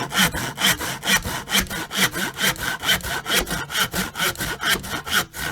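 Saw cutting through wood in steady back-and-forth strokes, about two a second.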